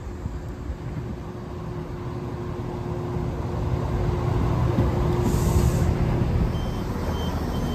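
Class 171 Turbostar diesel multiple unit pulling into the platform, its engines and wheels growing louder as it draws alongside and slows, with a short hiss of air about five and a half seconds in. Near the end a regular high beeping starts, the train's door warning as it comes to a stand.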